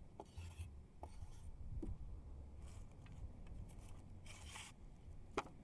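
Knife cutting mullet flesh for bait: four short scraping slices, the last a little longer, with light clicks and knocks in between.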